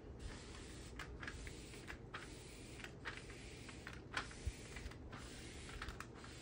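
Faint, irregular crackling and clicking of a diamond-painting canvas's clear plastic protective film as hands press and smooth it flat, over a low steady hum.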